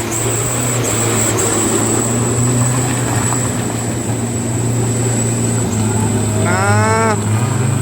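Mitsubishi Canter HD 125PS truck's diesel engine running steadily under a heavy load of about 7 tons of oil palm fruit in mud, its note rising a little near the end. A short high-pitched call is heard about seven seconds in.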